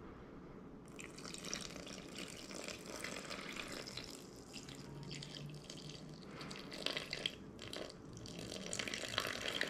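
Water trickling as it is poured from a stainless steel bowl into a steel mixing bowl of flour for pizza dough. It is a steady, fairly quiet pour that starts about a second in.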